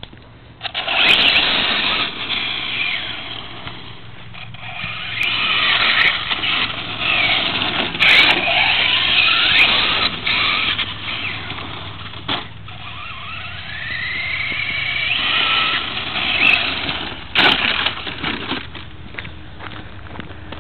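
Traxxas Slash VXL RC truck's brushless electric motor whining up and down in pitch as it is throttled, with its tyres spinning on gravel. A few sharp knocks, the loudest about three seconds before the end.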